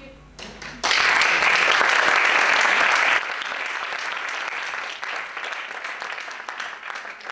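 Audience applauding, breaking out suddenly about a second in; it drops in level about three seconds in and carries on.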